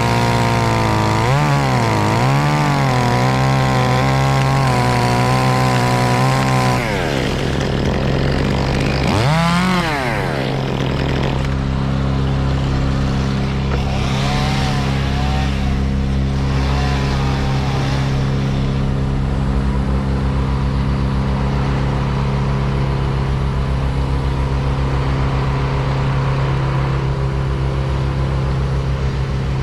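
An engine running hard, its pitch dipping twice under load in the first few seconds, then dropping off about seven seconds in. It revs up briefly again near ten seconds and then settles into steady, lower running.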